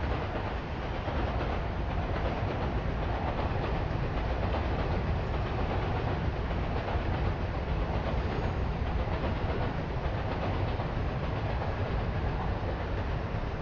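A train passing on the tracks, a steady, dense noise of wheels on rails heavy in the low end, over city street noise. It eases off at the very end.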